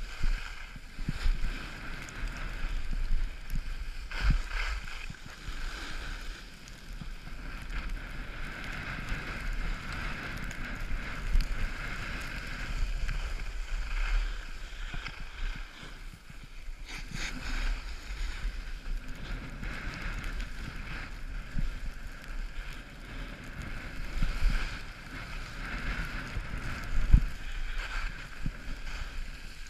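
Wind buffeting the microphone of a camera moving down a ski slope, over a steady hiss of sliding on snow. There are occasional thumps, the sharpest about four seconds in and near the end.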